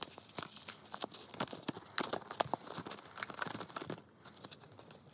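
Crinkling and rustling of Wrigley's 5 gum packs and their foil-wrapped gum sticks being handled, with many small sharp crackles and clicks. It quietens about four seconds in.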